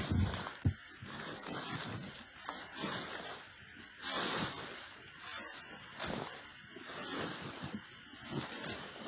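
Footsteps of leather work boots walking through long grass and dry thatch, each step swishing through the grass, roughly one a second; the loudest step comes about four seconds in.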